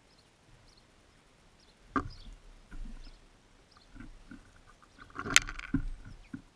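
Birds at a seed feeder close to the microphone: a series of irregular knocks and taps as they land and peck, the sharpest about five and a half seconds in, with faint high chirps behind.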